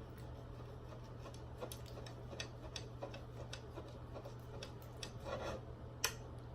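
Close-up eating of a steak: scattered small, irregular clicks and taps of chewing and utensils, over a faint steady low hum. There is a brief louder rustle about five seconds in.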